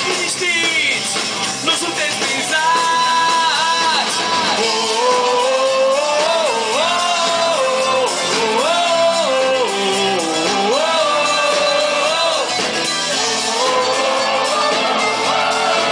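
Live band music, with keyboards, electric guitar and drums, and singing. The voice carries a melody of long held notes that slide between pitches.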